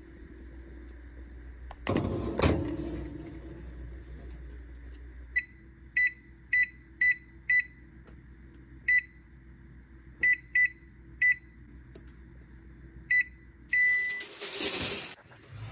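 Electric oven keypad beeping: about ten short, identical beeps as the temperature-down key is pressed step by step from 450 °F toward 400 °F, then one slightly longer beep near the end. A loud knock comes about two seconds in, and a short rush of noise just before the end.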